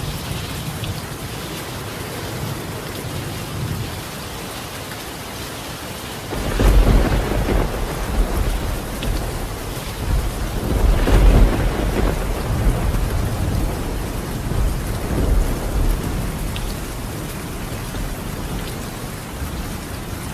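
Steady rain falling on a tiled roof, with a long rumble of thunder that starts about six seconds in, swells and then fades away over roughly ten seconds.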